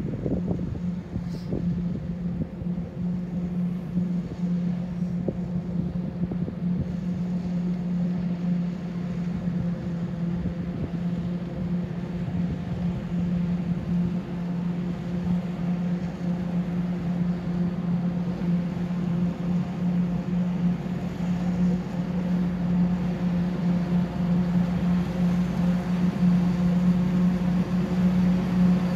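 Forage harvester chopping standing maize, with the tractor pulling the trailer alongside: a steady machine drone with a strong low hum, slowly getting louder as they come closer.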